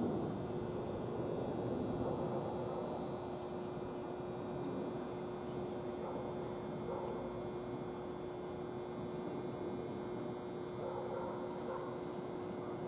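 Steady outdoor background noise with a constant low hum, and faint high ticks repeating about twice a second.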